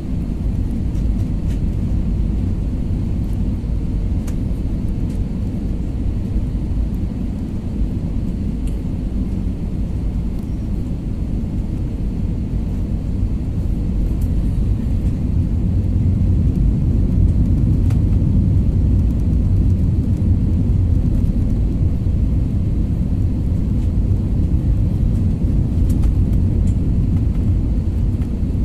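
Airliner cabin noise on approach to landing, heard from a window seat: a steady low rumble of the jet engines and airflow, growing a little louder about halfway through.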